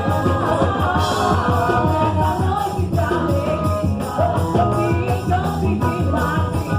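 Festa junina quadrilha music: a sung melody over a steady, driving beat.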